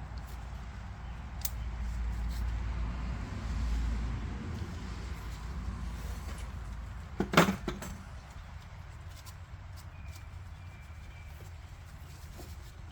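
Hand work on a disassembled brake: a few light clicks and one sharp clack about seven seconds in, over a low rumble that fades after about four seconds.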